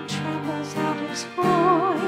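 Recessional hymn: acoustic guitar strummed in a steady rhythm, with a singer holding a note with vibrato near the end.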